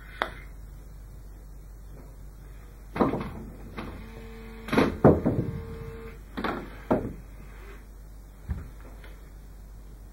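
Putter and golf balls knocking on an indoor putting mat: a sharp click at the start, then a scattered run of knocks and clicks, the loudest about five seconds in, with a short ringing tone under them, and a last knock near the end.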